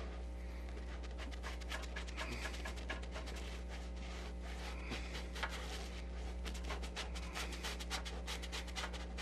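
Paintbrush dragging thick mixed paint across the painting surface in many short, quick scratchy strokes, over a steady low electrical hum.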